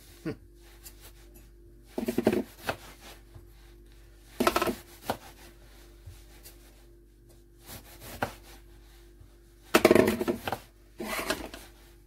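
Kitchen knife slicing through an eggplant on a cutting board: about six separate cuts at uneven intervals, the loudest about ten seconds in.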